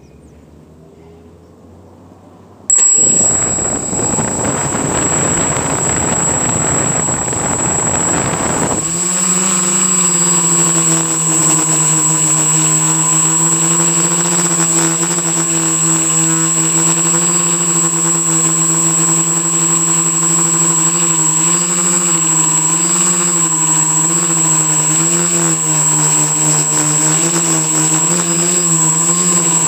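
Electric motors and propellers of a quadcopter, heard from a camera taped to its frame, start suddenly about three seconds in. A rush of air noise lasts several seconds as it lifts off, then settles into a steady buzzing hum whose pitch wavers slightly as it hovers and flies, with a high steady whine over it.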